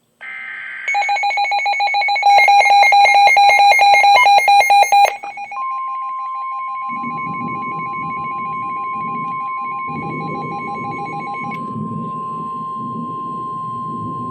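NOAA Weather Radio alert sequence: a brief burst of digital SAME header data tones, then a loud, rapidly pulsing electronic alert beep. About five seconds in the steady 1050 Hz warning alarm tone starts and holds, signalling that a new warning is about to be read.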